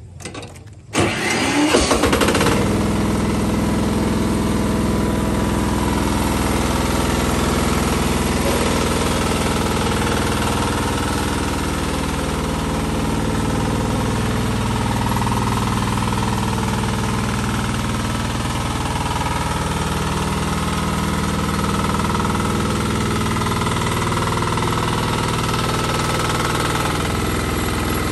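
TL-1.4 MAX mini rice combine harvester's engine starting about a second in and catching at once, then running steadily.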